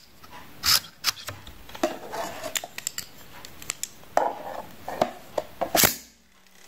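Plastic Beyblade rip-cord launcher handled: irregular clicks and rattles as the toothed rip cord is fed in and the top is fitted. Near the end, one sharp zip as the rip cord is pulled to launch the top, then the sound drops away.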